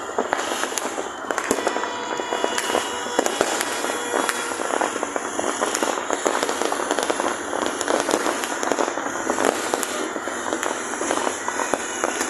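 Many fireworks and firecrackers going off at once, a dense, unbroken stream of sharp pops and bangs, several a second.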